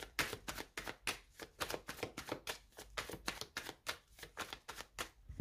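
A deck of tarot cards being shuffled by hand: a quick, irregular run of card slaps, about six a second, that stops just before the end.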